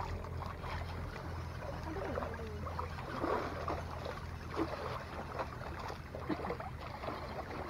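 Small sea waves lapping and gurgling against the rocks and concrete blocks of a breakwater, with scattered little splashes and trickles. A low hum fades out about a second in.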